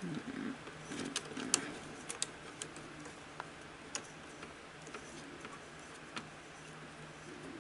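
Light, irregular clicks and ticks from a Sony SL-100 Betamax deck's reel spindle and plastic drive parts as they are turned by hand to check that they spin freely, with a faint steady hum underneath. The clicks come most often in the first few seconds and thin out after that.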